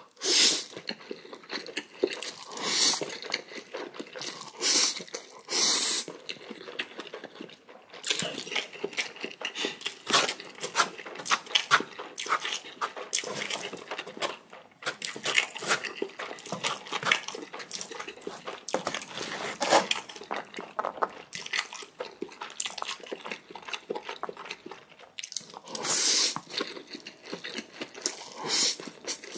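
Close-miked eating of jjajang-jjamppong ramen noodles. Several louder noisy slurps of noodles stand out among continual wet chewing and crunching.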